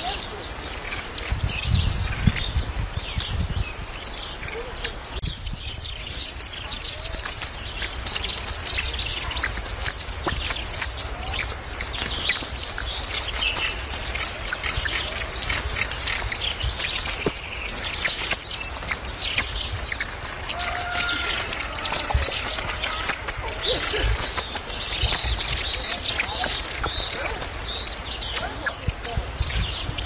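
Red-necked tanager (saíra militar) singing: a continuous run of rapid, thin, high-pitched twittering notes.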